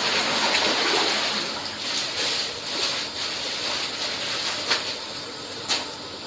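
Water splashing and running in an outdoor koi pond, with two sharp clicks near the end.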